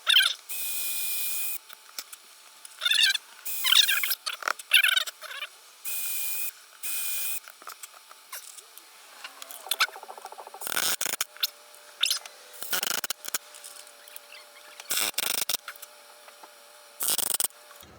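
Power drill run in repeated short bursts, drilling and driving screws into wood. Between and during the runs there are high, wavering squeaks.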